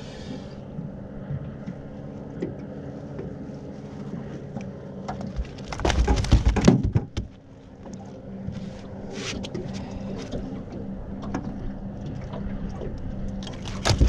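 A group of jet skis going past, their engines making a steady drone, with a loud burst of knocking and rustling about six seconds in.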